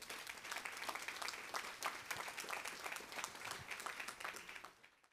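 Audience applauding, many hands clapping at once; the applause dies away near the end and then cuts off.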